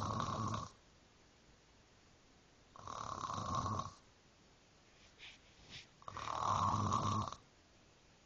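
Snoring in a steady rhythm: one snore trailing off at the start, then two more long snores about three seconds apart. Two short, soft breaths come just before the last snore.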